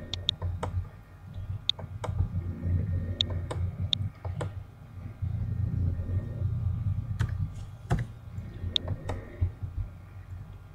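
Computer mouse clicks and a few keyboard key presses, single sharp clicks at irregular intervals, over a low steady hum.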